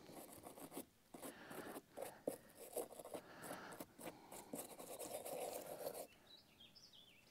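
A small hand brush scrubbing corrosion off a lead-acid battery cable's ring terminal: quick back-and-forth scratching strokes, about five a second with short pauses, stopping about six seconds in.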